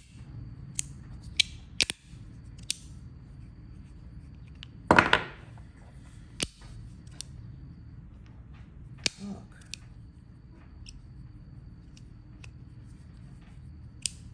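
Stainless steel fidget slider worked by hand: a dozen or so sharp metallic clicks at irregular intervals, with one louder, longer noise about five seconds in.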